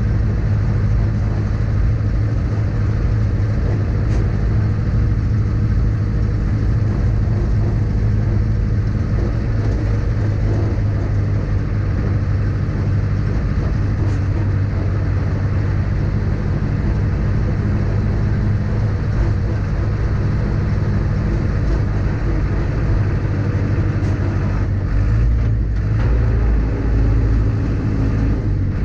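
Zetor 6711 tractor's four-cylinder diesel engine running steadily while driving, heard from inside the cab. The engine note shifts briefly near the end.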